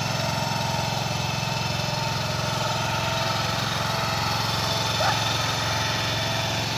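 Small engine of a stand-on compact loader running steadily as the machine moves through snow. A brief high-pitched sound is heard about five seconds in.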